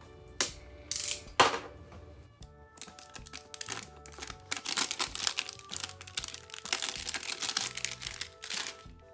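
Plastic film wrap being torn and peeled off a hard cardboard lens box: a few sharp rips in the first second and a half, then continuous crinkling from about three seconds in.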